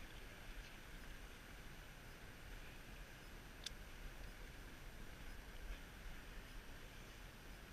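Faint steady rush of river water with a low rumble underneath, and a single sharp click about halfway through.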